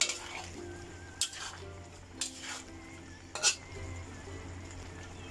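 Metal spatula scraping and knocking against a cooking pan as a beef and daikon stew is stirred, four strokes about a second apart, over soft background music.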